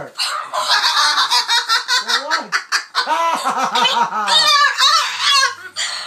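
Moluccan cockatoo squawking and cackling in a loud string of harsh calls, with a quick run of short rising-and-falling hoots about three seconds in and shrill screeches a second later.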